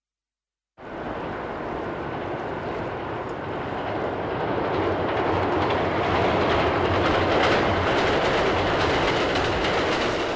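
A train running along the track, a steady rushing rumble that starts after a moment of silence, swells a little, then cuts off abruptly near the end.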